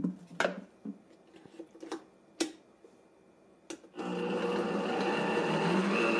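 A few sharp clicks and knocks, then about four seconds in a Vitamix 5200 blender's motor starts abruptly and runs steadily, grinding chunky almond pieces toward almond butter. Its pitch climbs a little near the end as the speed dial is turned up.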